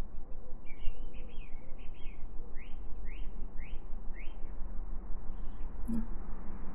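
A small songbird singing: a short warbled phrase, then four quick rising chirps about half a second apart. A steady low hum runs underneath, and a single click comes near the end.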